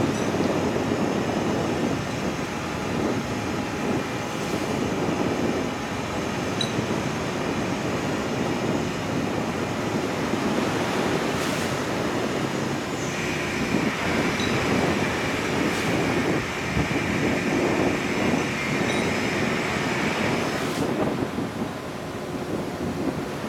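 Steady rumble of the ship underway with wind and water noise on the open foredeck. From about thirteen seconds in to about twenty-one seconds in a steady mechanical whine runs alongside it, which comes from the Thomson cargo derrick's winch as the boom is swung out and the hook is lowered.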